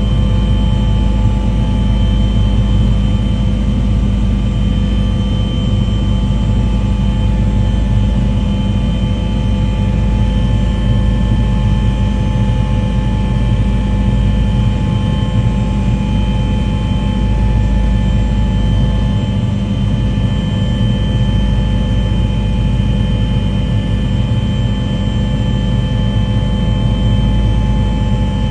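A loud engine runs steadily at an unchanging pitch, with a low rumble and several steady tones above it.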